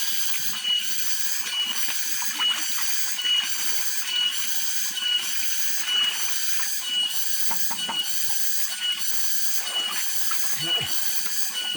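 Cicada (tonggeret) calling: a high buzzing drone that swells in a steady rhythm, a little more than once a second, each swell carrying a brief whistle-like tone.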